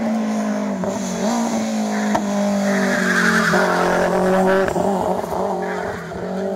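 Rally car engine at high revs, its pitch dropping and rising again with gear changes, and a burst of tyre squeal about halfway through as the car takes the corner.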